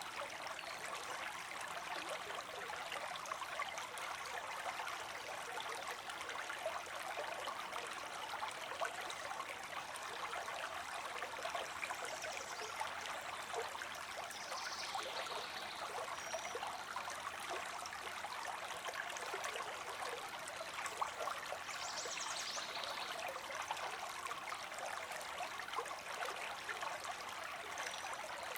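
Creek water streaming steadily.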